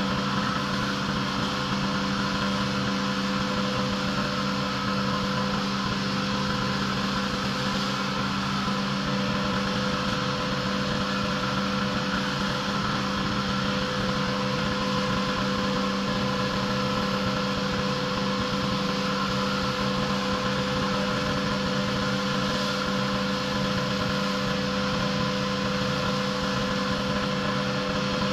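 Pressure washer engine running at a steady, even pitch.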